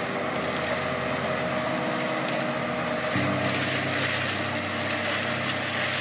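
PrimeTech PT600 tracked forestry mulcher at work: its diesel engine runs steadily while the front mulching head grinds into the ground. About three seconds in, the low engine hum shifts and grows stronger.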